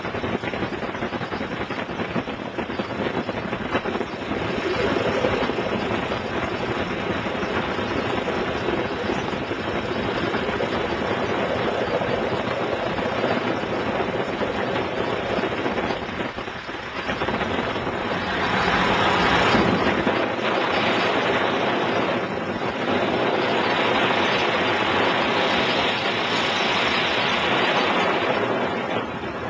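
Piper Super Cub floatplane's air-cooled flat-four engine and propeller running steadily. The sound gets louder about four seconds in, dips briefly just past the middle, and is louder again through the second half.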